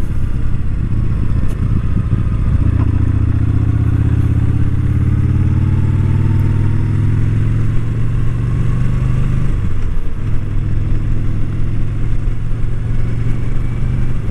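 Yamaha Bolt R-Spec's 942 cc V-twin engine running at road speed, its pitch rising slowly for several seconds, dipping briefly about ten seconds in, then holding steady. Wind noise in the helmet runs underneath, picked up by a mic under the chin pad.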